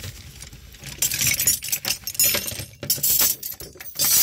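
Metal hand tools and their packaging clinking and rattling as they are handled and shuffled through, in irregular bursts of clatter mostly from about a second in.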